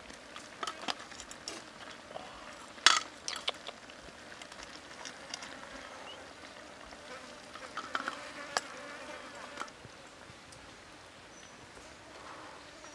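Metal utensils clinking and tapping against a steel plate and wok as cooked shellfish are moved and cut. A sharp clink about three seconds in is the loudest, a few more clinks come around eight to nine seconds, and faint insect buzzing runs underneath.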